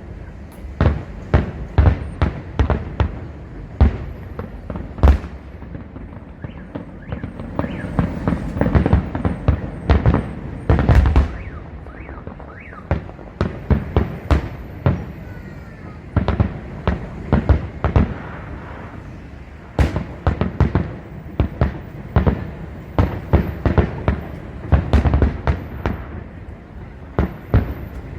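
Fireworks display: shells bursting in quick, irregular succession, with denser volleys of bangs about a third of the way in and again past the middle.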